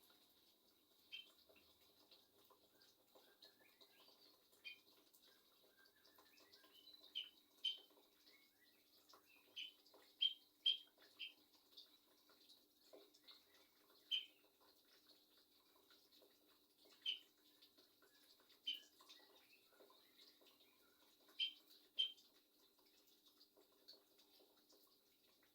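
A murai songbird giving short, sharp calls at irregular intervals of one to three seconds, with soft, faint twittering between them. The uploader presents these as the bird's hoarse voice and coughing, a sign that it is unwell.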